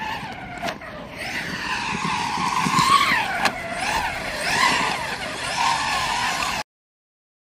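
Brushless motor and drivetrain of a large-scale electric RC car, running on a Castle Creations Cobra 5 HV 12S ESC, whining as the car is driven hard, the pitch rising and falling repeatedly with the throttle. The sound cuts off abruptly near the end.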